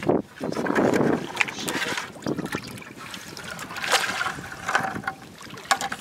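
Shallow seawater splashing and sloshing as spotted scat are grabbed in the water and dropped into a plastic bucket, with a few sharper splashes about four seconds in and near the end.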